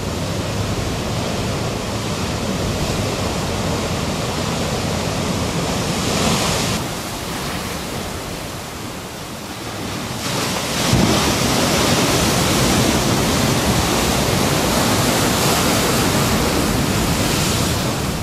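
Ocean surf breaking and washing in whitewater, a steady rushing noise with wind on the microphone. It eases for a few seconds in the middle, then comes back louder from about eleven seconds in.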